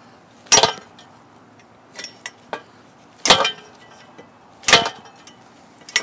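Three sharp metal clanks, with a few lighter clicks between them, as a steel-cored metal zip-tie bike lock is yanked hard by hand against a bicycle frame. The lock holds, being a little sturdier than a thin cable lock.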